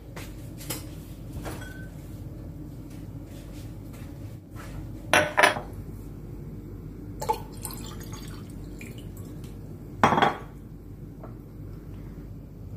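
Water poured from a glass bottle into a drinking glass, with sharp clinks of glass being handled and set down on a counter. The loudest are a quick pair about five seconds in and another about ten seconds in.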